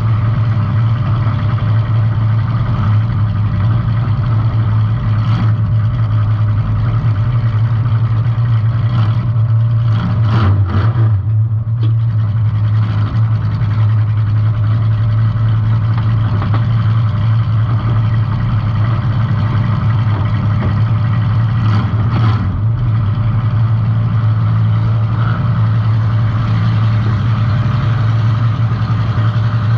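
Compact demolition derby car's engine running steadily and loud, with a few sudden knocks about five seconds in, around ten to eleven seconds, and about twenty-two seconds in.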